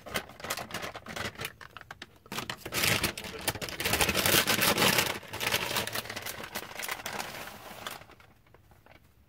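Plastic bag of shredded cheese crinkling and rustling as it is handled. The rustle comes in uneven spells, loudest in the middle, and stops about a second before the end.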